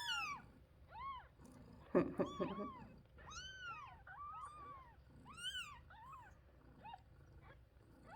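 Nursing kittens mewing: thin, high cries, each rising then falling in pitch, repeating about once or twice a second as a hungry kitten hunts for a nipple. A louder, lower-pitched sound comes about two seconds in.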